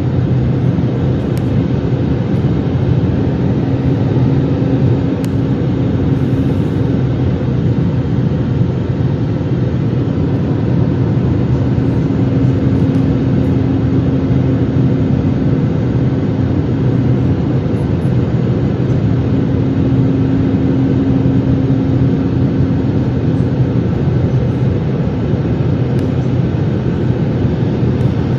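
Cabin noise of a jet airliner in cruise, heard inside the cabin by the window: a steady roar of engine and airflow, with a low hum that swells and fades a few times.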